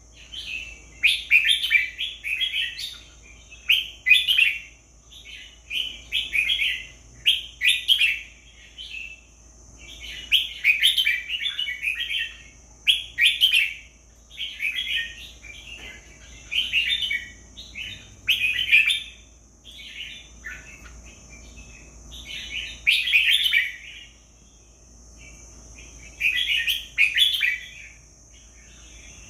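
Red-whiskered bulbul singing short, repeated song phrases, one every second or two with brief pauses between. A faint steady high-pitched tone runs beneath.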